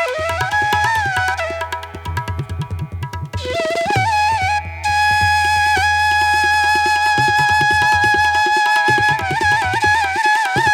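Instrumental background music: a wavering melody line over a steady low drone and drum strokes, with one long held note in the middle.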